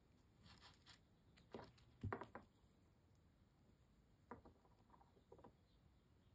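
Faint handling sounds of beadwork: a few small clicks and rustles as glass seed beads and superduos shift in the fingers and the Fireline beading thread is drawn through them, loudest about two seconds in.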